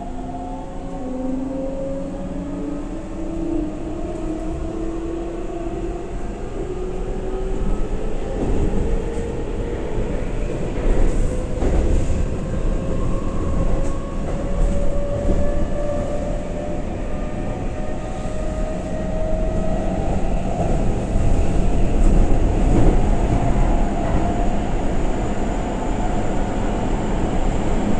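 Keihan 9000 series electric train under way in a subway tunnel, its traction motor whine made of several tones that climb slowly and steadily in pitch as the train accelerates. Underneath is a steady low rumble of wheels on rail with a few clicks.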